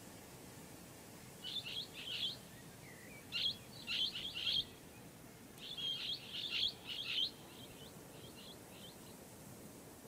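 Blue-headed parrots (Pionus menstruus) calling: three bursts of short, high-pitched chirps, with a few fainter ones trailing off near the end.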